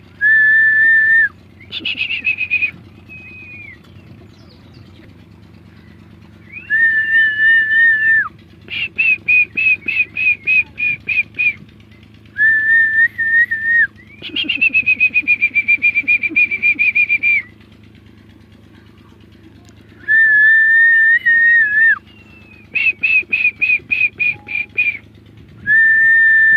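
Loud, shrill whistling: a held note alternates with a fast warbling trill, and the pair repeats about every six or seven seconds. A steady low hum runs underneath.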